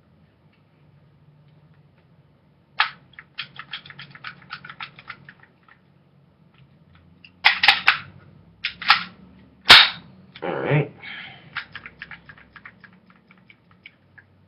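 Crosman Pumpmaster BB gun being handled and worked. A sharp snap comes about three seconds in, followed by a couple of seconds of small rattling clicks. Later come several louder plastic-and-metal clacks, then one sharp crack near ten seconds, followed by a brief rushing noise.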